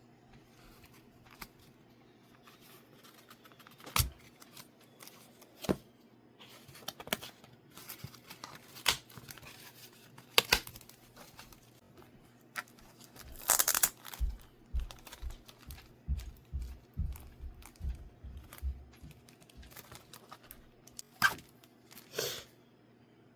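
Mail packaging being torn open and handled up close: scattered crinkles and clicks, a longer tear about halfway through, then a run of soft thumps as the package is handled.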